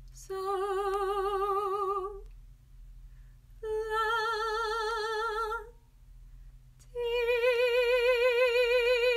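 A woman singing three long solfege notes, so, la and ti, unaccompanied. Each is held about two seconds with vibrato and pitched a step above the one before, with short pauses between; the last note is the loudest.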